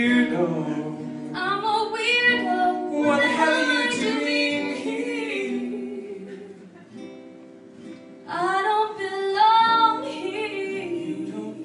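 A woman singing over acoustic guitar. The voice pauses briefly past the middle while the guitar carries on, then comes back in.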